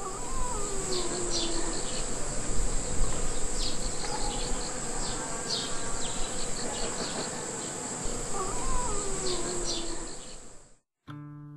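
Honeybees buzzing at flowers over a steady high-pitched insect chorus, with short high chirps scattered through. The sound cuts off suddenly near the end.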